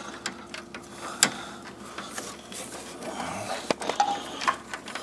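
Irregular clicks and knocks of hand tools and metal parts being handled in a car's engine bay as a cooling-fan mounting bolt is worked loose, with two sharper knocks about a second in and near four seconds in.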